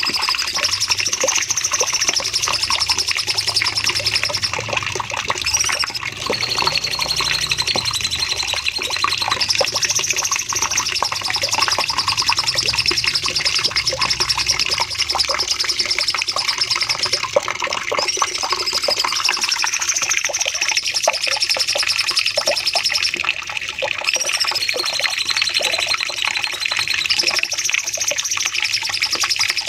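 Cucak cungkok singing long, rapid, high trills that rise and then fall, each followed by a lower trill that slides down, the pattern repeating every few seconds.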